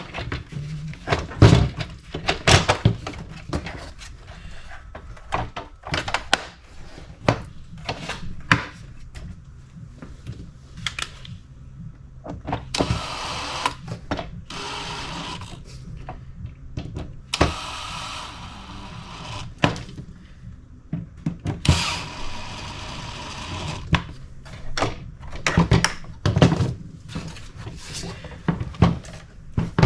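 Plastic blower housing parts being handled and fitted back together: scattered clicks and knocks, with three stretches of rubbing or scraping about halfway through.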